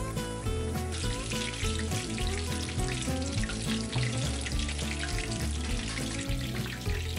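Battered chicken tempura deep-frying in hot oil: a dense crackling sizzle that thickens about a second in, once the pieces are in. Background music plays along with it.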